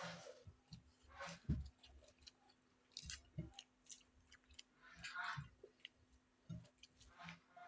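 Faint chewing and eating sounds: people eating rice and egg curry, with irregular small smacks and clicks of mouths at work, over a faint steady low hum.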